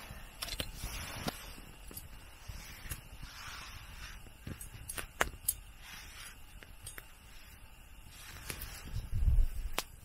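Small wood campfire crackling, with scattered sharp pops, and light metallic clinks from a wire grill rack being handled over the fire; a few dull knocks near the end.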